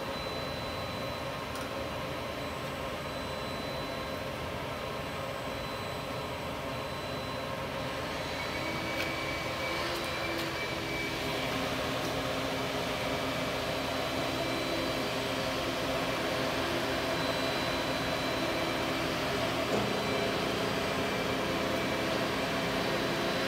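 Star SA-12/16 CNC Swiss-type lathe running with its spindles turning at 500 RPM: a steady mechanical hum with a few steady whining tones. About eight seconds in it grows somewhat louder and new tones join.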